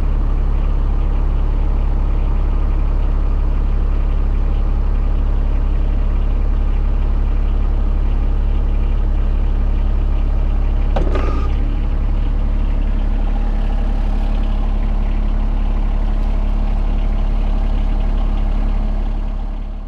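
A John Deere compact tractor's diesel engine idles steadily while its hydraulics lower the dump cart's bed. There is a brief clank about eleven seconds in, and the sound fades out at the very end.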